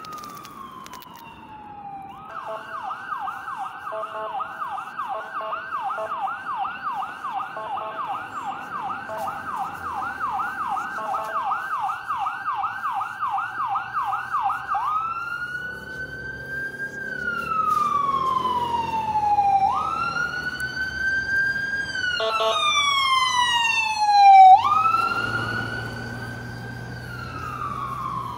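Emergency vehicle siren sounding close by. It runs as a fast yelp of about three pitch sweeps a second, then changes about halfway through to a slow rising-and-falling wail. There is a brief loud burst near the end.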